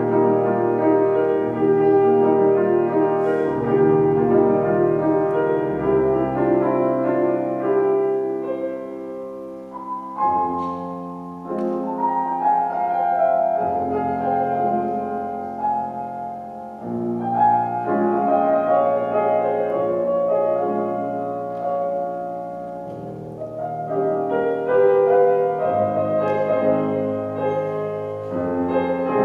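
Bohemia grand piano played solo in a classical piece: dense chords and running passages that ease off briefly about a third of the way in and again about three quarters through, then build up again.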